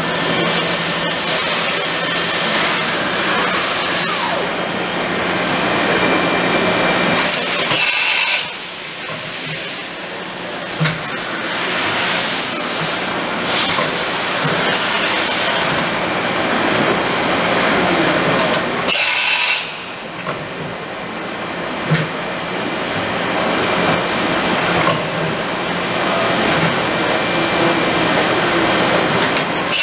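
Kitamura Mycenter 3 vertical machining center running under power, a steady mechanical whir and hiss as the table and spindle head move. Brief sharp hissing bursts come about 8 s, 19 s and 30 s in.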